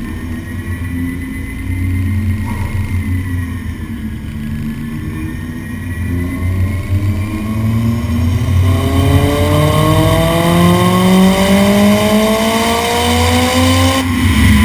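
Honda S2000's inline-four engine on a chassis dyno, heard at its ASM exhaust: it runs at a steady low speed for several seconds, then revs climb steadily in a long pull through the gear, the pitch rising for about eight seconds before cutting off abruptly near the end as the throttle closes.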